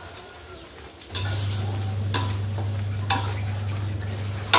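Metal spoon stirring and scraping chicken wings in a thick sauce in a large wok, with a sizzle and a knock of the spoon on the pan about once a second, the sharpest near the end. A steady low hum sets in about a second in.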